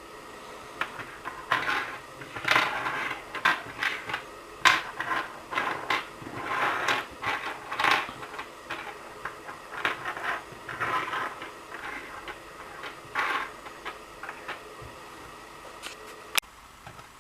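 Small plastic parts and packaging being handled: irregular rustling with sharp clicks and knocks, busiest over the first two-thirds, then one sharp click near the end.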